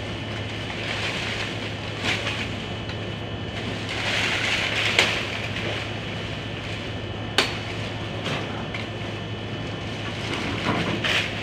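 Bolo knife hacking at tree branches overhead: a few sharp chops, the loudest about halfway through, and bursts of leaves rustling, over a steady background hum.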